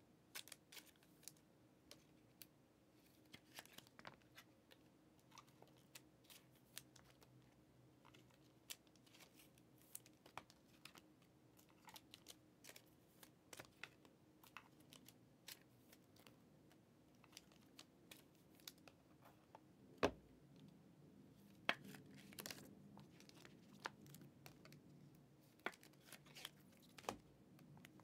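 Faint clicks, taps and rustles of Panini Elite football trading cards being handled and laid onto stacks on a table, with one sharper tap about two-thirds of the way through.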